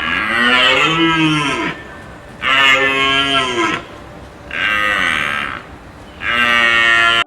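Cow mooing: four long calls, each rising and falling in pitch, the last cut off abruptly.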